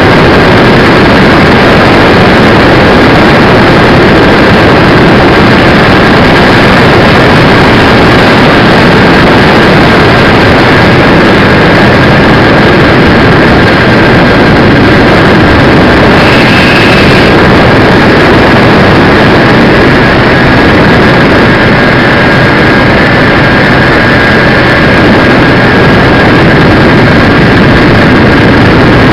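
Radio-control DC-6B scale model's engines and propellers running steadily in flight, with air rush, picked up very loud by a camera mounted on the model; a thin steady whine sits over the noise. About sixteen seconds in a brief extra hiss lasts about a second.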